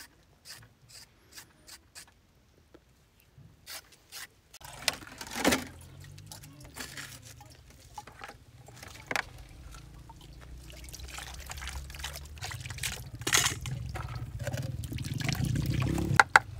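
Water running into a plastic basin and splashing as vegetables are washed by hand in it. There are a few light knocks at first, the water starts about four and a half seconds in, and it gets louder toward the end.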